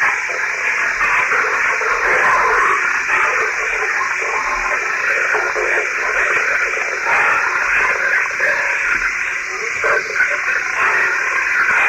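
Lo-fi, hiss-laden recording presented as the growls of a thylacine (marsupial tiger): a steady, noisy rasp with shifting texture and no clear pitch.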